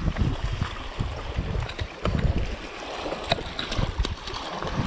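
Wind buffeting the microphone over small waves lapping and sloshing against shoreline rocks, with a few light clicks about three to four seconds in.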